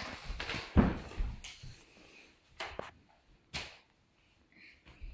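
Footsteps on a hard floor: several short thumps and knocks, about a second apart, fading out in the second half.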